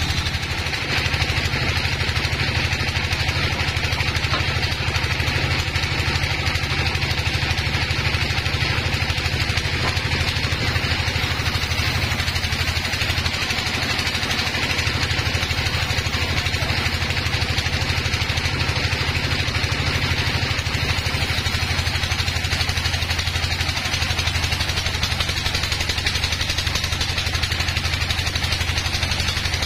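Sawmill band saw running steadily while sawing a beam of very hard timber: a constant low hum with a steady hiss above it, unbroken throughout.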